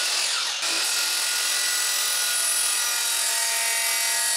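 DeWalt sliding miter saw running with a steady whine as its blade cuts through a half-inch polyethylene cutting board.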